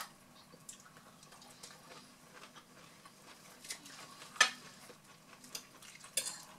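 Forks clinking and scraping on dinner plates in a few scattered short clicks, the loudest about four and a half seconds in.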